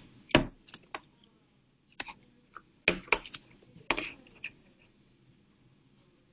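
Irregular clicks and taps at a computer, about a dozen in the first five seconds, keyboard or mouse clicks. The loudest is a duller knock just after the start. They stop about five seconds in.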